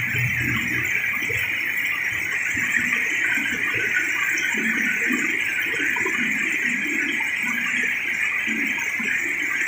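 Small stream splashing down a series of low rock cascades, a steady rushing of water.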